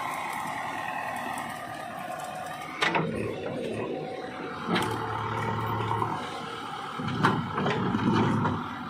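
JCB 3DX backhoe loader's diesel engine running while it works its hydraulics, swelling now and then under load. Three sharp knocks come a couple of seconds apart.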